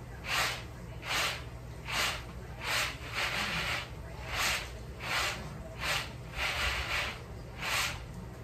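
Peanuts being winnowed on a round woven tray: about ten rhythmic rattling swishes, roughly one every three-quarters of a second, as the nuts are tossed to shed their thin red skins.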